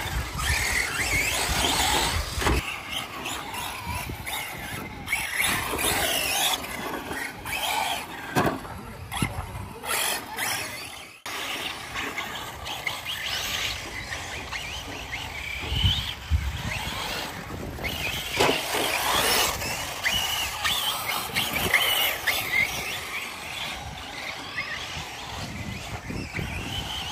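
Electric radio-controlled cars running on a dirt track: high-pitched motor whine and tyre noise that swell and fade as the cars accelerate, slow and pass. The sound breaks off abruptly for a moment about eleven seconds in.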